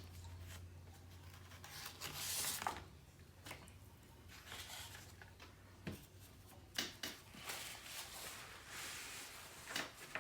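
Quiet rustling and small handling noises, with a few soft clicks and a longer brushing rustle about two seconds in, consistent with cloth being handled to deal with cake spilled on a shirt.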